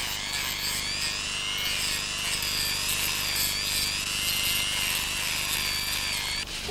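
Small handheld rotary tool with a cutting disc running against old plaster, cleaning the back of a detached plaster piece. It gives a steady high whine that wavers slightly in pitch and cuts off just before the end.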